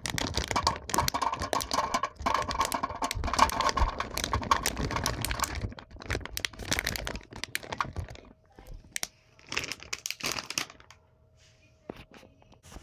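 Hard 18mm boilies being tipped into an NGT boilie grinder's bowl: a dense clatter of small hard balls. The clatter thins to scattered clicks about halfway through and dies away near the end.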